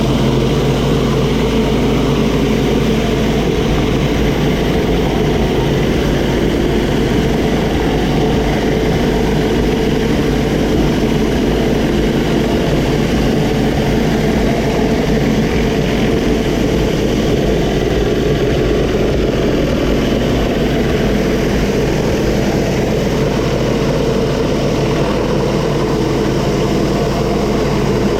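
Pressure washer's engine running steadily under load, with the hiss of high-pressure water blasting the concrete driveway.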